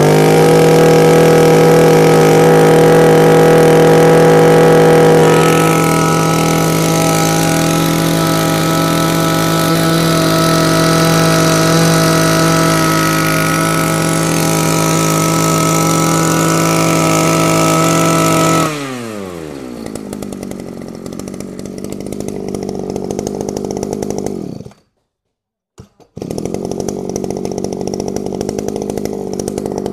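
Shindaiwa S26 26cc two-stroke brush cutter engine running at high revs, then the throttle is let go and the pitch falls to a steady idle. After a brief break it carries on idling.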